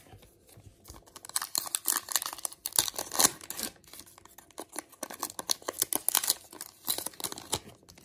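Wrapper of a Topps baseball card pack being torn open, crinkling and crackling in irregular bursts for several seconds.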